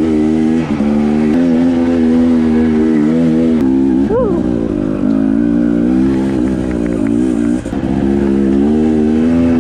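Dirt bike engine running while riding, heard on board, its note wavering up and down with the throttle, with one quick rev that rises and falls about four seconds in.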